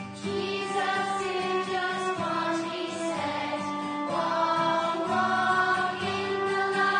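A slow hymn: voices singing long held notes over instrumental accompaniment.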